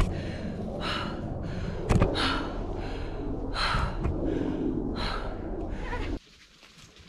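A hiker breathing hard under a heavy backpacking pack, a loud breath about every second and a half over a low steady rumble, with one knock about two seconds in. The sound drops away suddenly about six seconds in.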